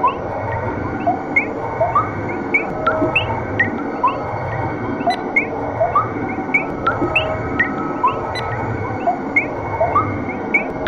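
Many short, quick rising chirps, scattered irregularly, over a steady hum with a low throb about once a second.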